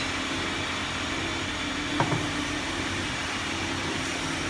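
JLC-30KW induction forging furnace running with a steady hum and hiss while it heats metal bar ends red. A single sharp knock about two seconds in.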